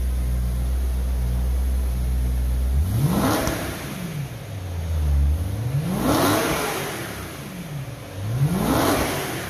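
2011 BMW M3's V8 engine idling, then revved three times, each rev climbing in pitch and falling back to idle.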